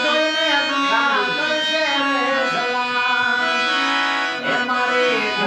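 Harmonium playing held reedy chords while a man sings a devotional folk song over it, his voice rising and falling in pitch.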